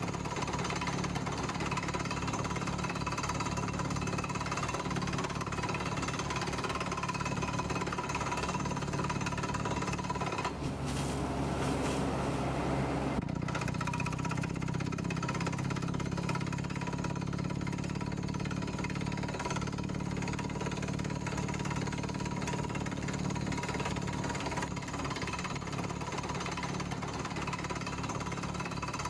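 Beretta T44 borehole drilling rig's engine running steadily at the drill site, a fast low pulsing with a steady hum over it. A brief rush of noise comes through about eleven seconds in.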